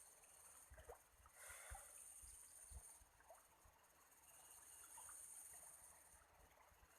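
Faint ambience of a riverbank: a steady, high-pitched insect chorus that swells and fades, with a few soft low knocks.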